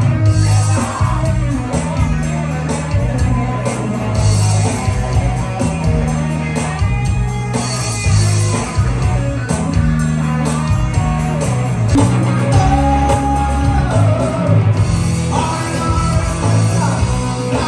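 Live band playing rock music, with a male singer over acoustic and electric guitars and a steady bass line and beat.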